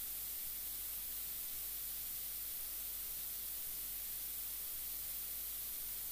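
Steady static hiss with a low hum beneath it that drops out briefly about once a second.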